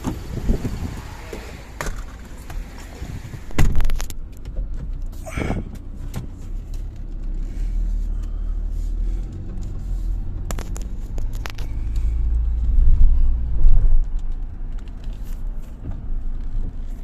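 Car running and moving, heard from inside the cabin: a low rumble that grows louder in the second half, with a few knocks and clicks along the way.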